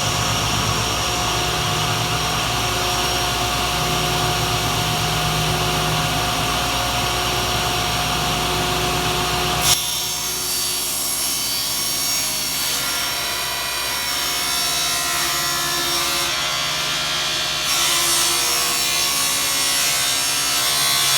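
Table saw running with its blade at full speed, a steady hum and whine. About halfway through the sound changes to a harsher, brighter rasp as the blade cuts through the end of the plywood panel.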